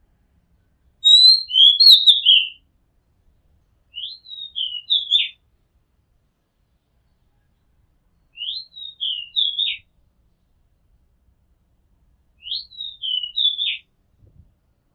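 Oriental magpie-robin singing: four short whistled phrases a few seconds apart, the first about a second in and loudest. Each of the later three repeats the same pattern, a quick rising note followed by a few falling notes.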